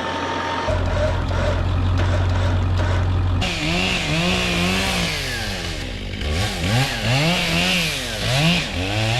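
Chainsaw cutting into the tree, its revs rising and dipping again and again as the chain bites the wood. Underneath runs a steady low engine hum.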